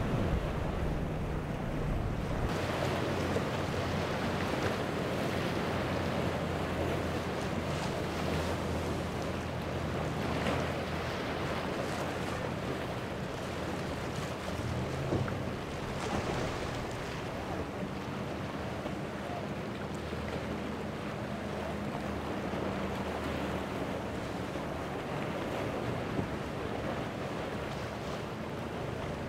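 Outboard engines running steadily, a low hum under the wash of breaking waves and spray, with wind buffeting the microphone.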